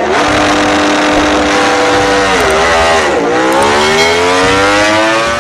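Ducati MotoGP race motorcycle's V4 engine revving loudly, held at high revs at first, then dipping twice around the middle before its pitch climbs steadily as the bike accelerates away.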